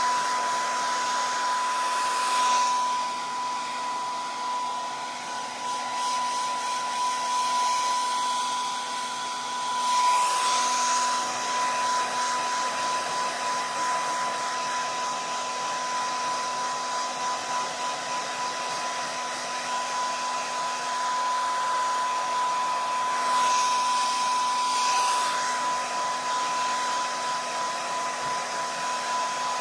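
Handheld hair dryer running steadily, a rush of air with a steady high whine from the motor, swelling briefly three times as it is moved about while drying hair.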